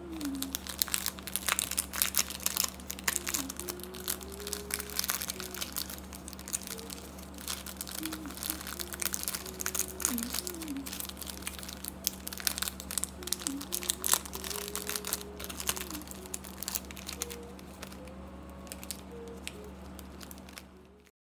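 Clear plastic bag crinkling as it is folded and pressed by hand, in many quick rustles that thin out in the last few seconds. Faint background music with a wavering tune and a steady low hum sit underneath, and everything cuts off just before the end.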